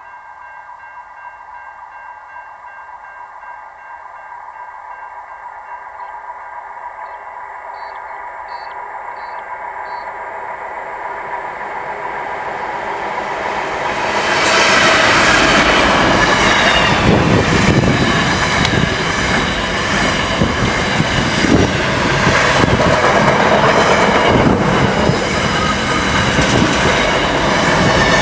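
Pacific National NR-class diesel-electric locomotive hauling a container freight train: the approaching train grows steadily louder for about fourteen seconds, then the locomotive passes close by and the wagons' wheels clatter over the rail joints as they roll past.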